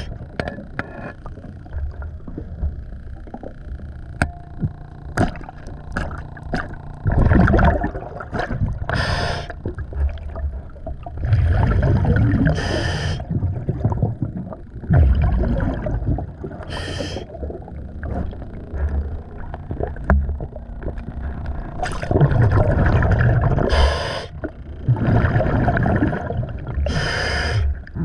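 Scuba diver breathing through a regulator underwater: a hissing inhale and a rush of exhaled bubbles every few seconds, with scattered clicks and knocks in between.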